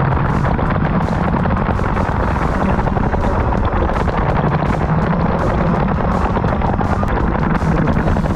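IAME X30 125cc two-stroke kart engine running hard, its pitch climbing in the first second, dipping briefly about two-thirds through and climbing again, with wind rushing over the onboard microphone.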